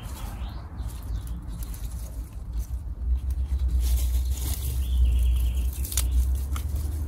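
Wind rumbling on the microphone outdoors, strongest in the second half, over light rustling and snapping of young salad greens being picked by hand.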